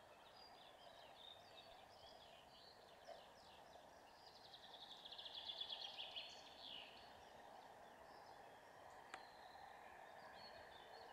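Faint birdsong over a quiet open field: scattered high chirps, with a rapid trill about midway. A single faint click comes near the end.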